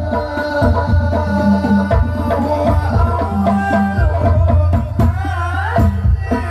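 Sholawat, an Islamic devotional song, sung by men into microphones over rebana frame drums beating a steady rhythm, heard through a PA sound system.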